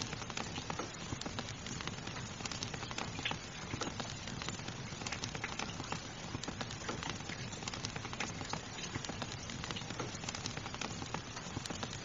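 Fireplace fire crackling with many small irregular snaps over the steady hiss of rain.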